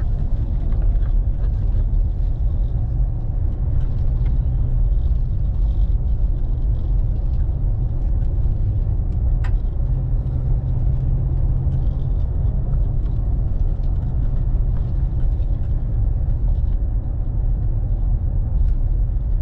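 A car driving, heard from inside the cabin: a steady low rumble of engine and road noise, with a single sharp click about nine and a half seconds in.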